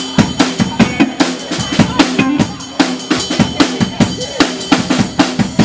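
Acoustic Pearl drum kit played in a drum break, with fast even hits about five or six a second on snare, bass drum and cymbals.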